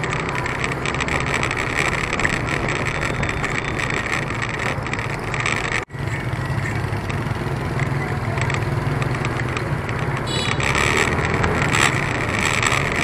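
Steady hum of motorbike and scooter engines in moving street traffic, mixed with road and wind noise. The sound cuts out for an instant about six seconds in.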